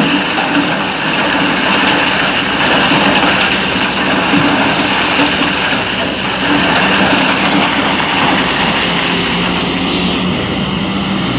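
Excavator's diesel engine running steadily, with a continuous rushing noise over it and no distinct knocks or pauses.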